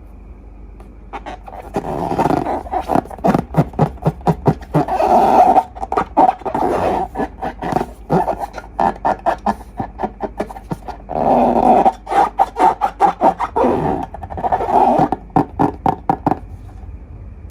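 Slime being squeezed and worked by hand: rapid sticky clicks and pops with a few longer squelching, rasping stretches as air is pressed out.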